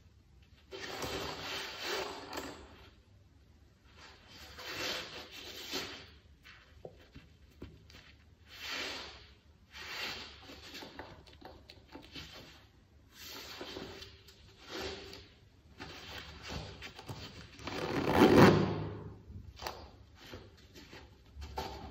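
Gloved hands rubbing and turning a canvas high-top sneaker with a rubber sole, making rustling, scuffing handling noises in about eight separate bursts, the loudest about eighteen seconds in.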